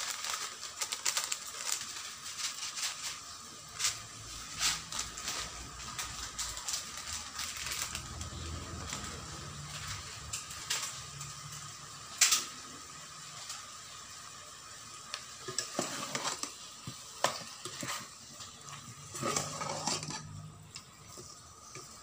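A metal spoon stirring and scraping chicken pieces in an aluminium rice-cooker pot, with irregular clinks against the pot wall and one louder clink about halfway through, over a light sizzle of the chicken cooking.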